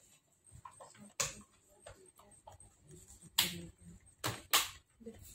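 Fingertip taps on a Samsung Galaxy J5 Pro (SM-J530) smartphone's touchscreen glass while keying numbers on the dialer: a few sharp clicks, a small one about a second in, a louder one about three and a half seconds in and two more in quick succession about a second later.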